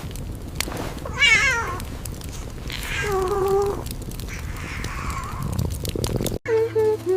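A cat meowing three times: a high, wavering first call, then a second that falls and holds, then a fainter third, over a steady background hiss. A short run of music starts near the end.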